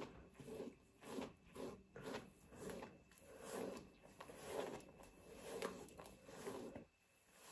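Hairbrush strokes through damp, detangled hair: a faint run of repeated brushing swishes, roughly two a second, stopping near the end.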